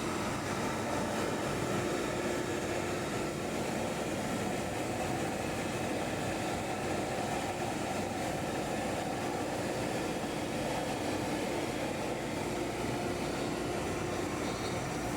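FR3020 desktop CNC router running steadily while milling a rectangular cut: an even machine hum with a steady whine over a broad hiss.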